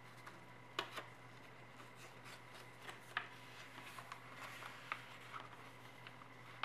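A sheet of origami paper being folded and creased by hand: soft rustling broken by sharp crinkling snaps, the sharpest about a second in and about three seconds in, over a faint steady hum.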